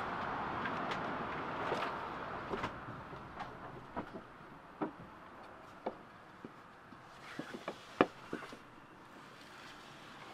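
Irregular light knocks and clicks of wood and gear being handled in a sailboat's cabin and mast opening, the sharpest about eight seconds in. A rush of wind noise fades over the first couple of seconds.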